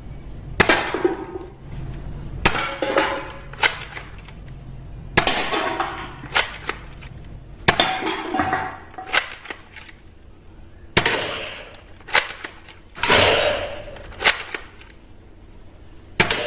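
Toy gun being fired: a dozen or so sharp, irregular clacks and pops, several trailing off in a short rattle.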